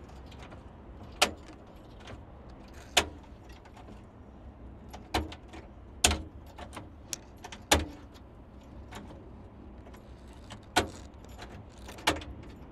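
Trunk latch of a 1975 Ford Maverick being worked by hand: sharp metallic clicks and clacks at irregular gaps of one to two seconds, about seven in all.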